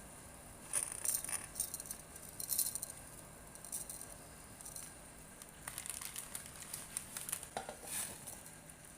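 Irregular light clicks, taps and crinkling of small things being handled, in two spells: one starting about a second in and one in the second half.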